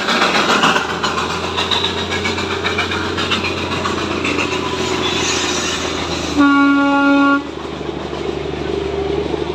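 Darjeeling toy train sounding its horn once, a single steady blast of about a second roughly six seconds in, over busy clattering noise of the train and its surroundings.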